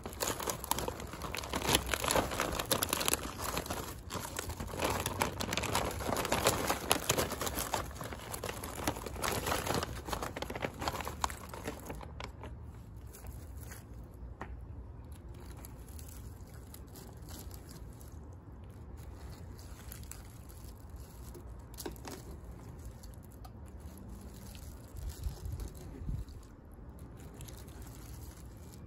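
A plastic bag crinkling as cooked crawfish are tipped out of it into a pot of broth, for about the first twelve seconds. Then it goes much quieter, with occasional light clicks as a wire skimmer stirs the crawfish in the pot.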